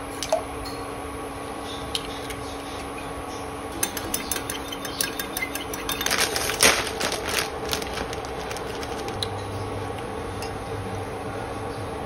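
Eggs beaten with a metal utensil in a glass measuring jug: a quick run of clinks against the glass that starts about four seconds in, is loudest a couple of seconds later and dies away, over a steady background hum.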